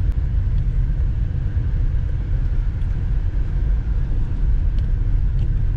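Car cabin noise while driving slowly on a rutted dirt track: a steady low rumble of engine and tyres, with a few light clicks and rattles.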